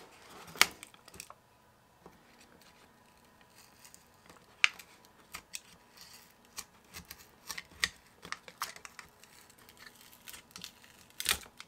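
Thin pry tool clicking and scratching against the glued-down battery cells of a 2015 15-inch MacBook Pro as the adhesive tape under them is worked loose. There are scattered sharp clicks and light scrapes, the loudest a little under a second in and again about four and a half seconds in.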